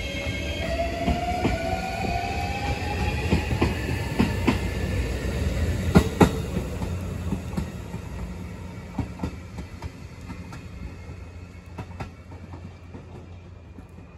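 JR Shikoku 7200 series electric train accelerating away: its motor whine rises in pitch over the first few seconds. The wheels clack over rail joints, loudest about six seconds in, and the sound fades steadily as the train recedes.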